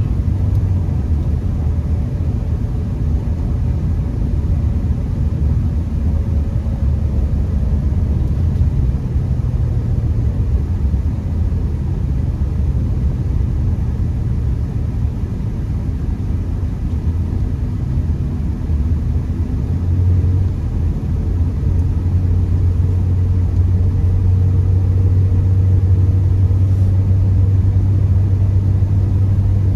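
Honda Accord being driven, a steady low rumble of engine and road noise heard from inside the cabin, swelling a little about two-thirds of the way through.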